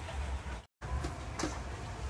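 Outdoor market background noise, mostly a low, uneven rumble. The sound drops out to total silence for a split second less than a second in, then resumes.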